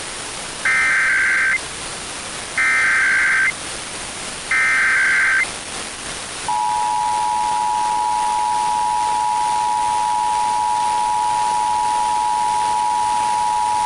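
Emergency Alert System SAME header: three bursts of warbling data tones, each about a second long. About a second after the last burst, the steady two-tone EAS attention signal (853 and 960 Hz together) starts. It marks the start of a Required Monthly Test, heard over FM radio with a faint hiss underneath.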